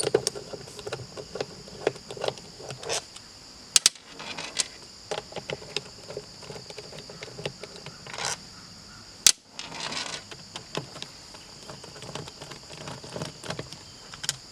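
Screwdriver clicking and scraping as screws are worked out of a boat's remote throttle control box, with irregular sharp knocks of metal and plastic handling. A steady high-pitched insect buzz runs underneath.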